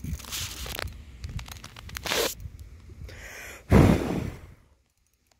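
Spinning reel's drag buzzing in several short rasping bursts, with fine clicks between them, the loudest about four seconds in: a hooked fish, a peacock bass, is pulling line off the reel.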